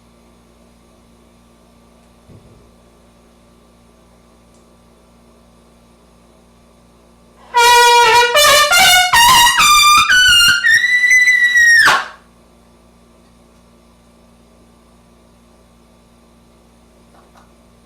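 Trumpet playing a quick run of short notes climbing upward, ending on a held double high C for about a second and a half before it stops cleanly. A low steady room hum lies underneath.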